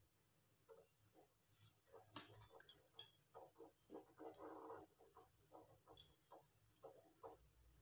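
Faint crackling of cumin seeds tempering in hot oil in a pan, with a light sizzling hiss. There are a few sharp clicks about two to three seconds in and another about six seconds in.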